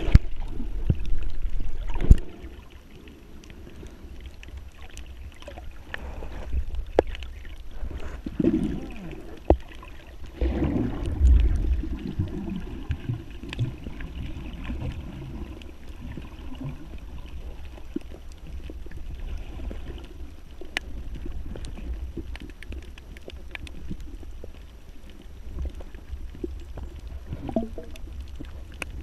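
Water sloshing and bubbling around the camera over a steady low rumble, with scattered clicks and crackles. The loudest surges come about a second in and again around ten to twelve seconds in.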